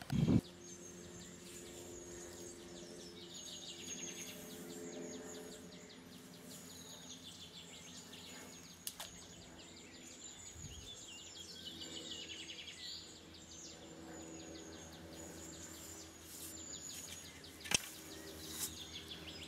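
Birds singing and trilling over a faint steady low hum, with a dull thump at the very start and a sharp click near the end.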